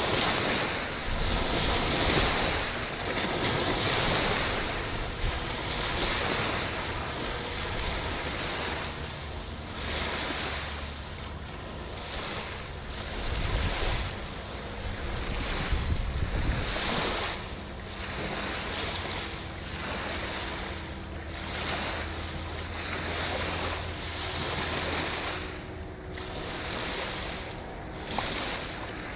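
Boat wake washing in on the river in repeated surges every second or two, with wind buffeting the microphone. Underneath, the faint low drone of passing motorboat engines.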